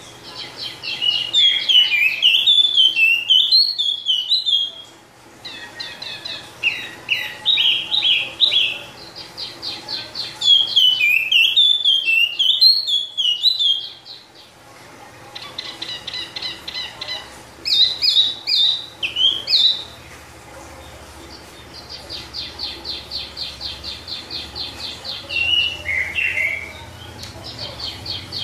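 A caged wambi songbird singing long runs of rapid chirping and trilling phrases, with short pauses between runs and a long fast trill in the second half.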